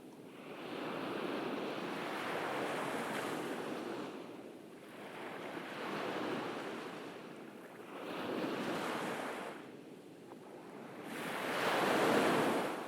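Ocean waves breaking and washing up a beach, surging four times a few seconds apart, the last surge near the end the loudest.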